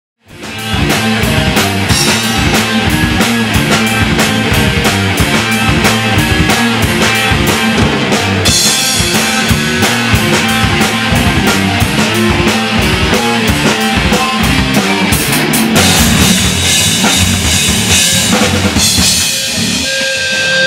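Rock music with a steady drum-kit beat and guitar, starting abruptly at the beginning and thinning out a little near the end.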